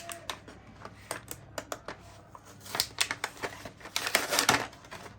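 A modelling-clay kit package being opened by hand: plastic packaging crackling and clicking, with the busiest crinkling about three and four seconds in.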